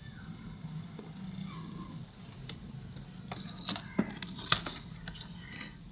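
Small clicks and taps of tools and parts being handled during hand work on a TV circuit board. A run of them comes in the second half, with two sharper knocks about half a second apart, over a steady low hum.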